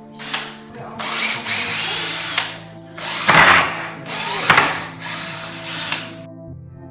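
Cordless drill-driver running in several spurts of a second or so, backing the screws out of an old wooden bench to take it apart; the spurts stop shortly before the end.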